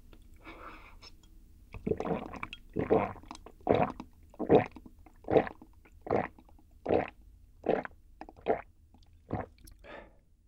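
Close-miked swallowing: a person gulping down a milky drink from a glass mug in a steady run of about eleven gulps, roughly one every 0.8 seconds, after a faint first sip.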